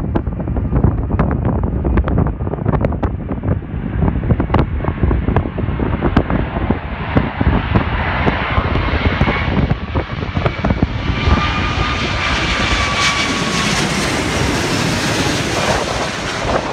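Emirates Boeing 777-300 jet airliner on landing approach, its engine roar growing louder as it closes in and passes low overhead, with a faint engine whine that sags slightly in pitch. Wind buffets the microphone, and the jet covers it in the second half.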